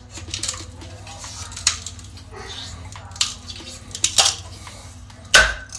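Razor blade scraping and prying a strongly stuck ABS print and its brim off a 3D printer bed plate in short, quick scratching strokes. One louder sharp crack comes about five seconds in.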